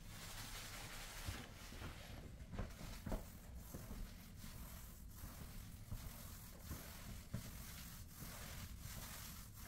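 Pole-mounted roller spreading wet finish over a hardwood floor: faint rolling and squishing strokes, with a few soft taps.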